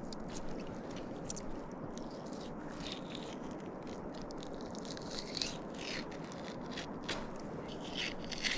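Scattered small scrapes and crunches of trout being skinned and handled on ice, over a steady hiss.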